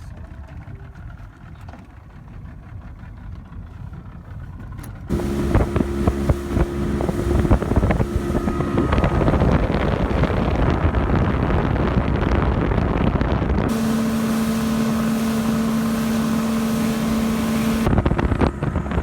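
Motorboat under way on open water: a low engine rumble that jumps suddenly to a loud, steady drone with rushing wind and water noise about five seconds in, with a steady whine in some stretches.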